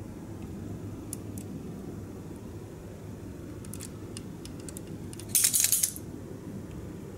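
Tweezers and small hand tools handling plastic model-kit parts: a few faint ticks, then a short burst of rapid metallic clinking about five seconds in, over a steady low hum.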